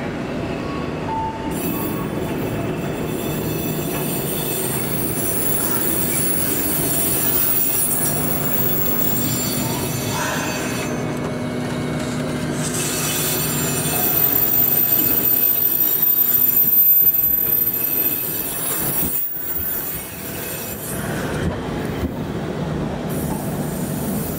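Fukui Railway tram approaching and passing close by on street track, running with a rumble and a high-pitched squeal from the wheels on the rails. It is loudest a little past the middle as the car goes by, then moves off.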